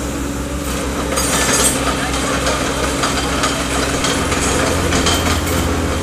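Komatsu PC30-3 mini excavator's three-cylinder Komatsu diesel engine running steadily. From about a second in, louder mechanical and hydraulic noise joins as the machine is worked.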